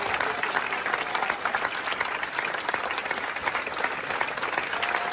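Theatre audience applauding, steady dense clapping from a large crowd in the auditorium.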